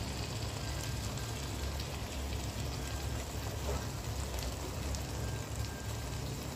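Thick chicken kosha sizzling in its separated oil in a kadai, a steady crackle with a few light scrapes from a wooden spatula stirring it. A steady low hum runs underneath.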